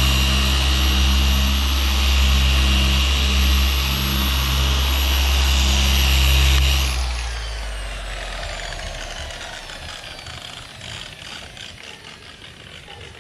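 A motor running steadily with a strong low hum and a high whine, switched off about seven seconds in and winding down, its pitch falling as it fades.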